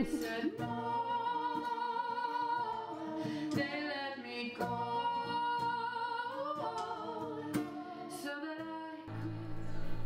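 Music: a woman singing long, held notes in a slow song.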